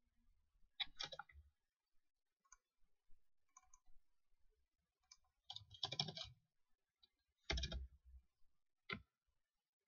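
Faint clicking of a computer keyboard and mouse while code is edited, in several short clusters of keystrokes and clicks separated by pauses, the loudest about six and seven and a half seconds in.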